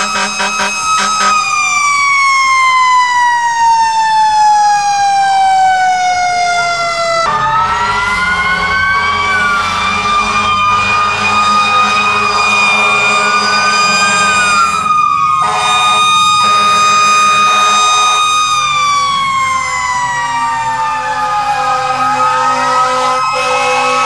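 Several fire truck sirens wailing at once, their pitches sliding up and down and crossing each other. One siren winds steadily down in pitch over the first several seconds, and a steady high tone holds through much of the rest.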